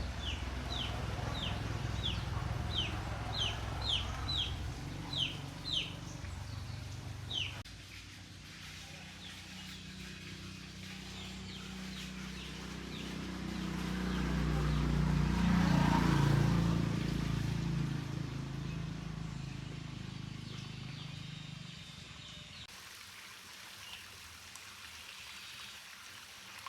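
A bird, likely a chick or hen, chirping over and over in short high falling calls, about two a second, above a low rumble; the calls stop after about seven seconds. Then a low rumble swells to its loudest about midway and fades away slowly.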